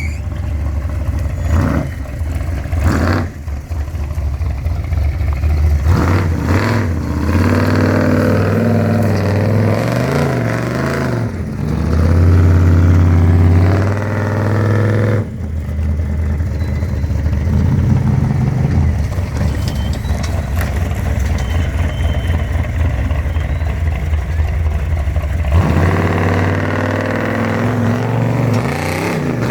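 Built off-road 4x4's engine revving up and down under load while rock crawling, with its loudest, longest rev about halfway through. A few sharp knocks in the first seconds.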